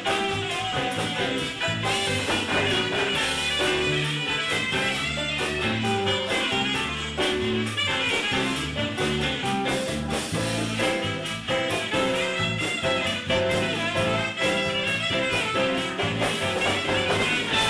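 Live big band playing a Latin cha-cha, with a brass section of trumpets and saxophones over timbales and congas, continuous throughout.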